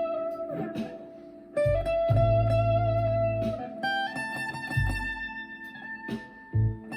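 Harley Benton ST guitar played through a Marshall MG15CFX amplifier with a Behringer Vintage Overdrive pedal: a lead line of long, held single notes that step from pitch to pitch, with low bass notes underneath.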